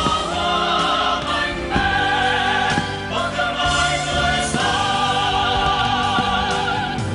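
Music with a choir singing long held notes with vibrato.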